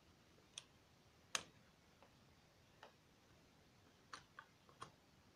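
Scattered light plastic clicks and taps as an extension cord's plug is handled and pushed into a socket of a three-way power strip on a cable reel, about seven in all, the sharpest about a second and a half in and a quick cluster near the end.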